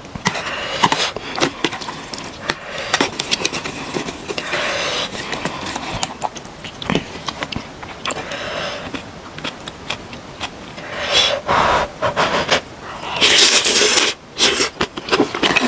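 Eating sounds: ramen noodles and broth slurped several times, the loudest slurp near the end, with short clicks of chopsticks against a plastic container.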